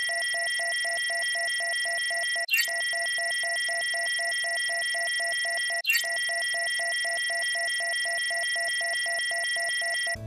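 Synthetic electronic scanner sound effect: a steady high electronic tone over rapid pulsing beeps at about five a second. It restarts twice with a short falling sweep and cuts off suddenly near the end.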